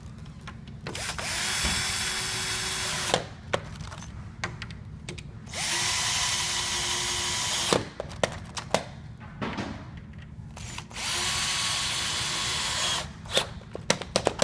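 Cordless drill-driver driving screws, three runs of about two seconds each with the motor spinning up at the start of each, and small clicks and knocks of handling between them.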